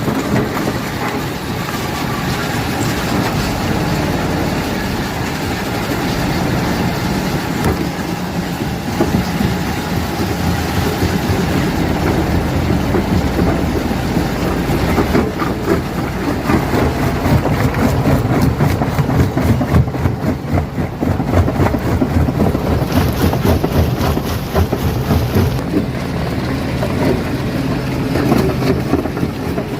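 Stone crusher running under load: a steady low machine drone with dense cracking and knocking of rock being broken, busier in the second half.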